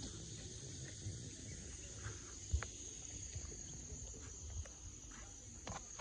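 Faint, steady high-pitched chirring of insects in the grass, over a low rumble, with a single tap about two and a half seconds in.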